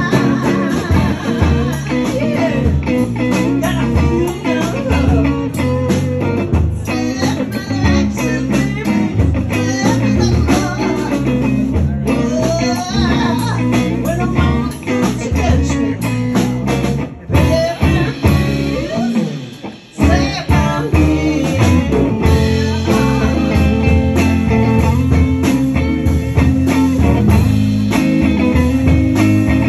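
Live band playing amplified electric guitars and drums in a small room. The music briefly drops away about twenty seconds in, then comes back in.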